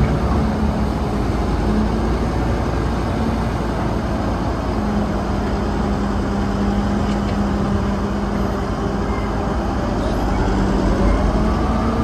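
Caterpillar 992G wheel loader's diesel engine running steadily under load with a low hum, as the loader raises its bucket and dumps it into a dump truck.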